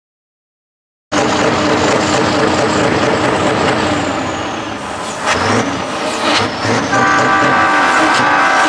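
Heavy diesel truck engines running loud as a line of trucks rolls slowly past, starting after about a second of silence. From about seven seconds in, a multi-note air horn sounds and is held steadily.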